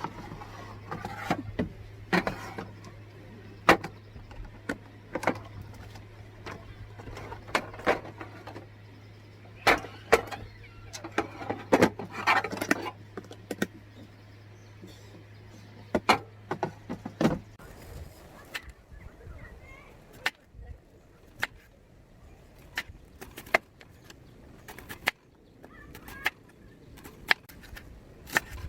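Many irregular sharp clicks and knocks, as of things being handled and set down, over a steady low hum that cuts off suddenly about seventeen seconds in.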